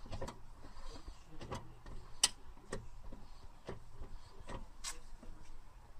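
A string of faint, sharp ticks or clicks, roughly two a second, one louder tick a little past two seconds in.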